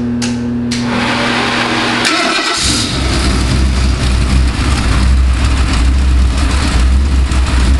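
Ford 351 Windsor small-block V8 crate engine on a test stand being started: the starter cranks briefly, the engine catches about two and a half seconds in, then runs with a loud, steady low rumble.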